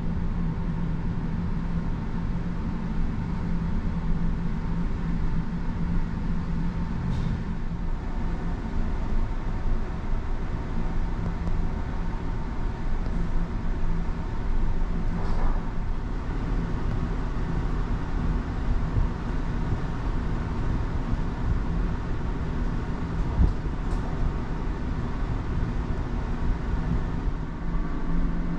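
Steady low drone of a large car ferry's engines and machinery heard from inside the ship, with a constant hum and a few faint clicks.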